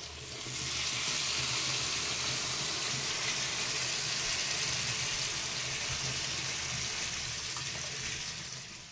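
Water poured from a plastic bottle into a hot karai of freshly braised meat curry, hissing and sizzling steadily as it hits the pan. It is the start of the gravy stage after the kosha. The hiss builds about half a second in and fades out near the end.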